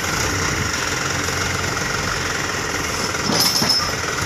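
Diesel dump truck engine running at a steady idle, with a brief clatter about three seconds in.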